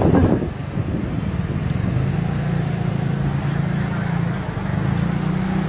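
Small motor-scooter engine running steadily at low speed, with a louder rush right at the start.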